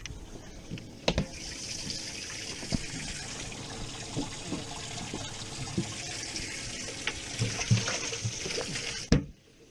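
Water running and splashing into a boat's livewell with the hatch open, a steady hiss with a few low thuds. A knock about a second in starts it, and a thump near the end cuts it off suddenly as the hatch shuts.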